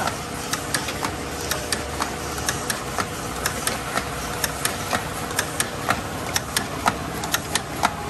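Automatic paint bottle filling line running: a steady machine hum with a faint held tone, under a quick, uneven run of sharp clicks, several a second, from the small plastic bottles and machine parts knocking as the conveyor and star wheel index them through the filler.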